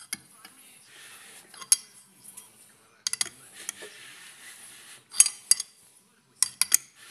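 Light metallic clinks and taps of tools and parts being handled on a V6 engine block during reassembly, coming in small clusters about a second and a half, three, five and six and a half seconds in, with a faint hiss between.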